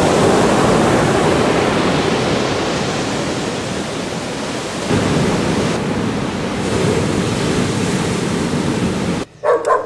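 Ocean surf washing ashore: a loud, steady rushing that swells a little about halfway through and cuts off abruptly near the end.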